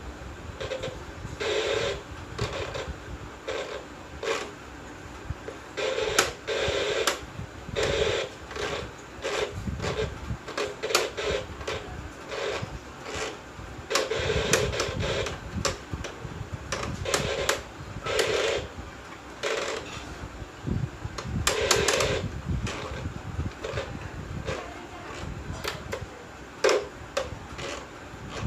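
Irregular clicks, knocks and rattles of hard parts being handled and worked on, coming every half second to second in uneven clusters.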